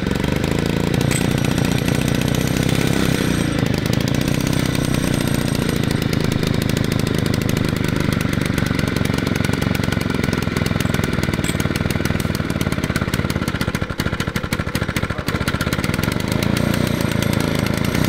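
Vintage Jacobsen 321 two-stroke lawn mower engine, about 3 horsepower, running on a mini bike with a rapid, even firing. Its revs shift now and then, and it falters briefly about fourteen seconds in.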